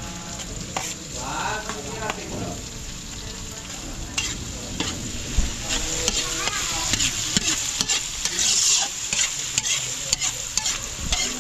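Spaghetti sauce sizzling in a pan as it is stirred, with the spoon clicking and scraping against the pan throughout.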